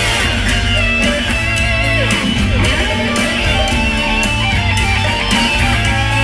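Loud show soundtrack music with electric guitar and a steady beat, played over the park's sound system.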